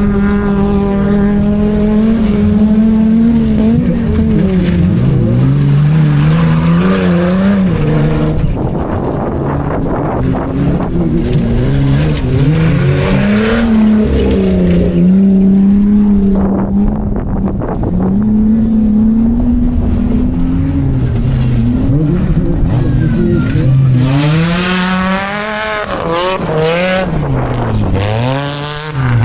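Off-road competition vehicles' engines revving on a dirt course, the pitch rising and falling again and again as the throttle opens and closes, climbing highest near the end.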